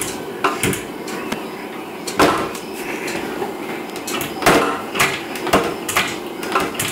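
Wooden cupboard doors being yanked and caught short by childproof latches, giving a series of irregular sharp knocks and rattles.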